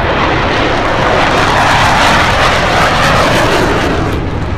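Jet roar of a formation of F-16 fighter jets flying past, swelling to its loudest about halfway through and fading near the end.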